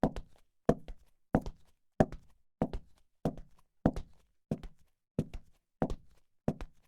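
High-heeled shoes walking at a brisk, steady pace: a sharp heel click about every two-thirds of a second, each followed closely by a quieter second tap.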